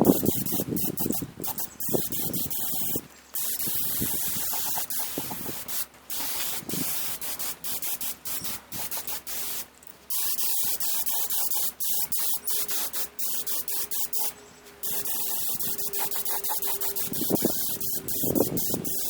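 Aerosol spray-paint can hissing in repeated bursts of a few seconds, with short pauses between passes.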